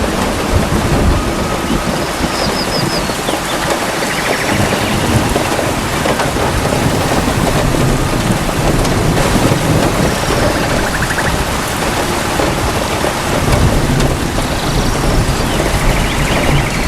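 Steady heavy rain falling in a forest, with low thunder rumbling that swells and fades. A few faint short high chirps and trills come through the rain now and then.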